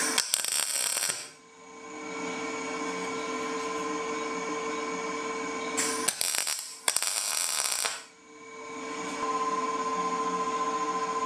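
MIG welder tack-welding a steel spoke onto a galvanized EMT conduit steering wheel: three short bursts of crackling arc, one right at the start and two more between about six and eight seconds in. The zinc coating on the conduit gives the arc its raspy, popping sound. A steady hum runs between the tacks.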